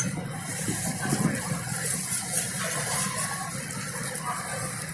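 Tour boat's engine running steadily, a low hum under an even rushing noise.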